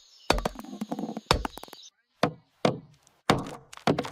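Wood being chopped: about six sharp, irregularly spaced chopping knocks. A thin high whine runs under the first two seconds and cuts off.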